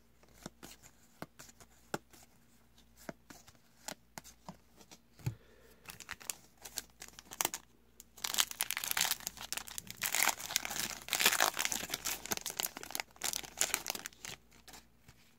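Trading cards handled with scattered light clicks, then from about eight seconds in a foil trading card pack torn open and its wrapper crinkled loudly for several seconds.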